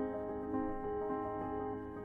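Soft background music with slow, sustained keyboard chords.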